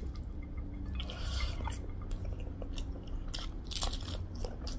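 Close-miked eating by hand: fingers working rice and curry on a plate, then biting and chewing with scattered crunches and wet mouth clicks.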